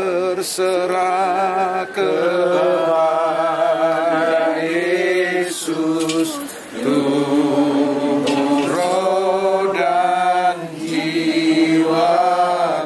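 A small group of men and women singing a slow hymn together, long held notes with a slight waver, in phrases a few seconds long with short breaths between them.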